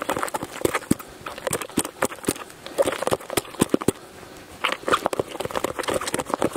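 Potatoes being mashed by hand in a stainless steel camping pot: a metal masher squelching through the soft mash and knocking against the pot's sides in quick, irregular strokes.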